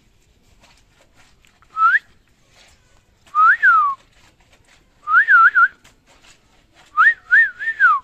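Clear whistling in four short phrases: a single rising note about two seconds in, a rise-and-fall note, then two wavier phrases of several quick ups and downs, the last dipping away at the end.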